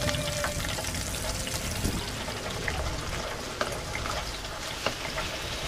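Diced chicken and onion sizzling in oil in a large enamelled paella pan, with a spatula stirring and clicking against the pan a few times.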